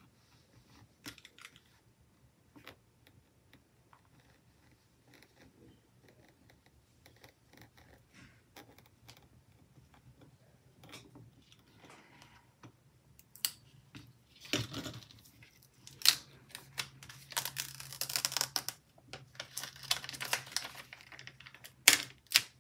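Faint ticks of a craft knife cutting around a paper circle sticker. From about halfway, louder paper handling: sharp clicks, then a stretch of crackling as the sticker is peeled off its backing sheet.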